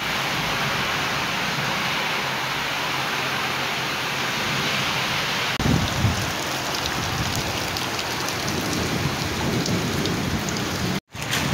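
Heavy rain pouring steadily, a dense even hiss. About five and a half seconds in it turns closer and splashier as rain pelts a flooded puddle, with a low rumble underneath and scattered individual drop splashes.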